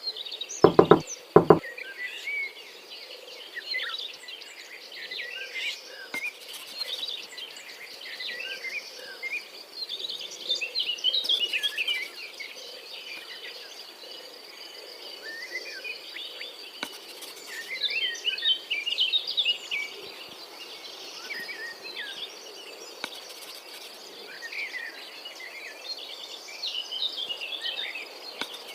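Many birds chirping and twittering, with a steady high insect drone behind them; two sharp knocks about a second in.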